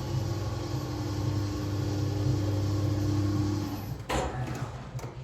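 Small passenger lift's drive humming steadily as the car descends. The hum stops a little before four seconds in as the car reaches the floor, followed by a brief scraping noise.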